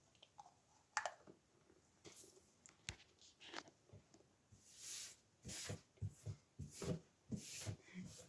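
Faint handling noises: a few light clicks, then a run of short rustles and crinkles from about halfway through as packaging is handled close to the microphone.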